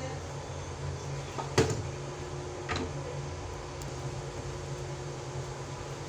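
A plywood drawer handled and turned over: a sharp wooden knock about one and a half seconds in, the loudest sound, and a lighter knock about a second later, over a steady low hum.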